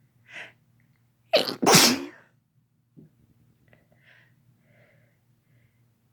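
A person sneezing: a quick in-breath, then about a second later one loud sneeze in two quick bursts, followed by a few faint sniffs.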